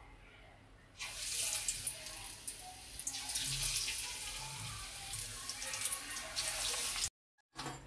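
Battered brinjal slices sizzling and crackling as they deep-fry in hot oil in a kadai. The sizzle starts suddenly about a second in and cuts off abruptly about a second before the end.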